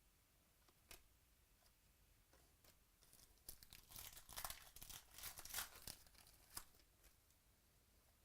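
A trading card pack's wrapper being torn open and crinkled, in a burst of about three seconds around the middle, with a light click before it.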